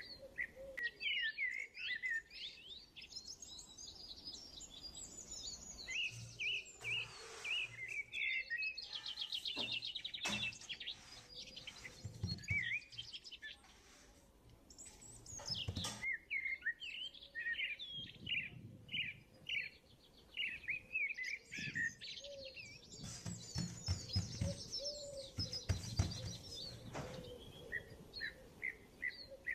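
Small birds chirping and twittering continually, with quick rapid trills now and then. Soft low thuds mixed in here and there.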